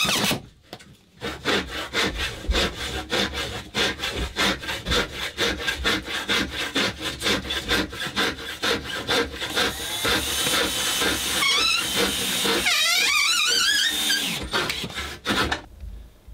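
Hand saw cutting through wood in quick, even strokes, about four a second. Two-thirds of the way through there are wavering high-pitched glides. It all stops abruptly near the end.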